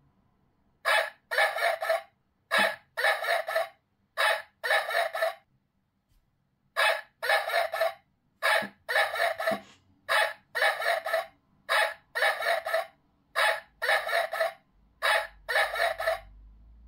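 Homemade barking-dog burglar alarm sounding, playing a recorded dog bark through a small speaker. The barks come in pairs, a short one then a longer one, repeating about every second and a half, with a brief pause about five seconds in.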